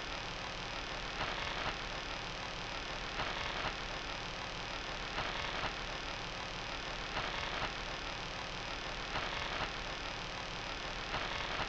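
EVP-style sound effect: steady static hiss over a low hum, with a brighter swell of noise roughly every two seconds, each lasting about half a second.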